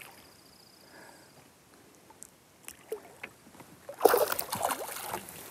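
A hooked largemouth bass thrashing at the water's surface, with a burst of splashing about four seconds in.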